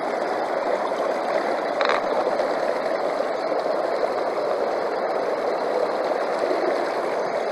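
Steady rush of river water flowing through a gold sluice box, with one light knock about two seconds in.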